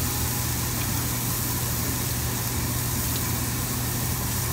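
Steady hum and hiss of a Korean barbecue table: the overhead grill exhaust hood running while sliced beef sizzles on the hot tabletop grill.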